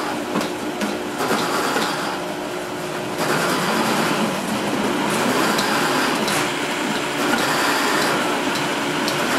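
Two high-powered countertop blenders, a Hamilton Beach Tournant and a 3-horsepower rival, running at once as they chop salsa vegetables; the motor noise gets louder about three seconds in as speed is turned up.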